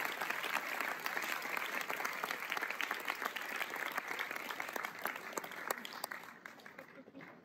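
Audience applauding, many hands clapping together, the clapping thinning out and fading away over the last second or so.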